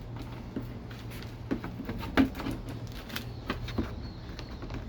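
Scattered light clicks and taps of a motorcycle windshield being handled and set into place on the fairing, one sharper knock about two seconds in, over a steady low hum.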